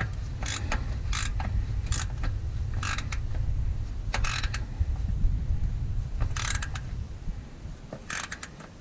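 Ratchet wrench clicking in short, uneven runs as it is worked on the oil filter, over a steady low rumble.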